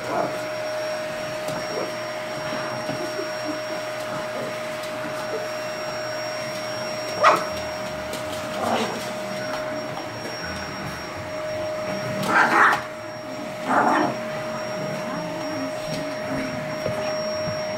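Vacuum cleaner running steadily with a constant motor whine. From about seven seconds in, a Boston Terrier gives a few short barks at the vacuum nozzle.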